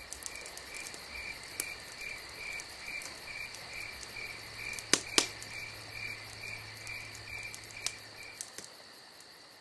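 Night insects: a cricket chirping about twice a second over a steady high trill, with two sharp pops from a burning log campfire about five seconds in. The chirping stops and the sound fades near the end.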